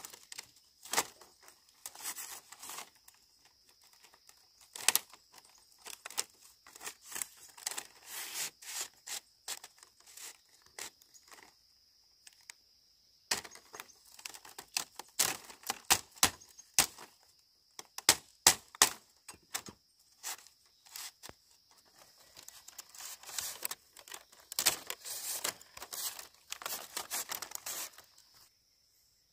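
Bamboo being worked by hand: irregular sharp cracks, clicks and tearing sounds in clusters, with short pauses. A steady high insect drone runs behind.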